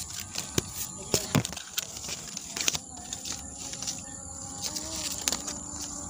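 Leaves and twigs rustling and snapping as branches are pushed aside, in quick crackles that are thickest in the first half. Under it runs a steady high-pitched insect drone.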